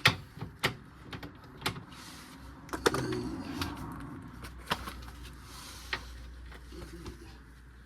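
Irregular metallic clicks and knocks of a socket set, sockets and bolts being handled while parts are unbolted from a car's underside, with a faint low hum underneath from about three seconds in.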